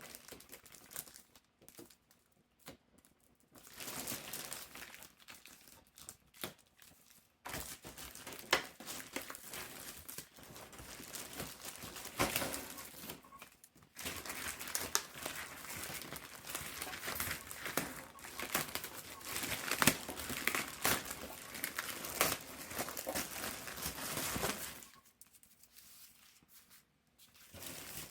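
Plastic stretch wrap being torn and crumpled by hand: irregular crinkling and tearing noise in spells with short pauses, dying away near the end.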